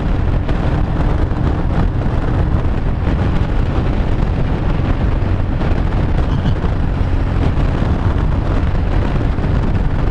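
Wind rushing over the microphone at motorway speed, over the steady drone of a Royal Enfield Himalayan 411's single-cylinder engine and tyre noise from the road.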